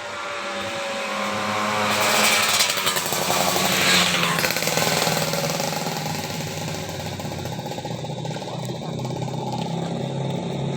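An engine running, with a louder stretch of noise from about two to four seconds in, then settling to a steady low hum.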